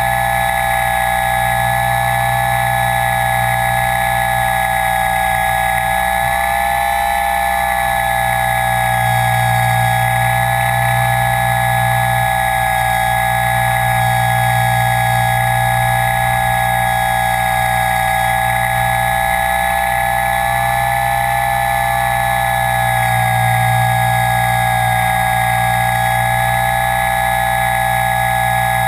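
Steady high whine of a radio-controlled aircraft's motors and propellers, heard close from its onboard GoPro camera. The pitch shifts slightly now and then, over a low rumble.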